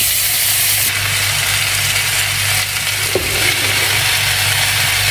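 Water-soaked glutinous rice sizzling in hot oil in a wok as it is stir-fried with a spatula, the hiss sharpest in the first second after it goes in. A single tap of the spatula on the pan about three seconds in.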